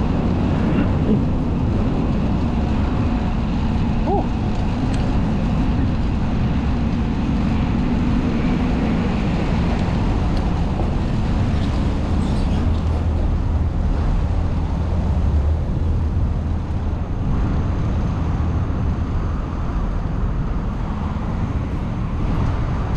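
Steady street traffic noise with a constant low rumble.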